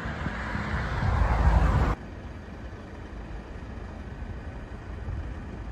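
Outdoor road noise: a vehicle passing, its tyre and engine noise swelling, then cut off suddenly about two seconds in. Quieter steady traffic hum follows.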